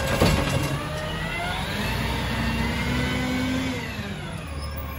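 Peterbilt 320 garbage truck's diesel engine revving as the truck pulls away, its pitch rising for about three seconds and then dropping a little before the end. A single clank is heard just after the start.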